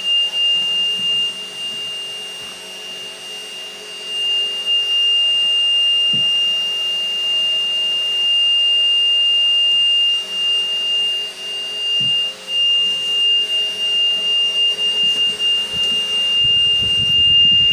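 A fire truck cab's electronic warning buzzer sounding one steady high-pitched tone without a break, over a faint low hum.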